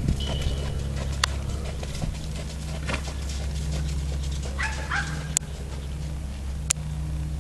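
A steady low rumble, with a short high whining animal call about four and a half seconds in and a few sharp clicks.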